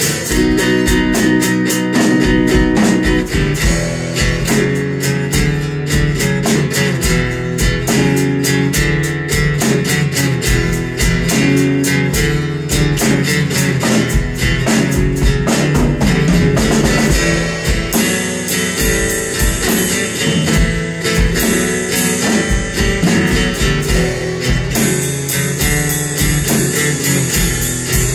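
Instrumental blues played live: a guitar over a drum kit keeping a steady beat.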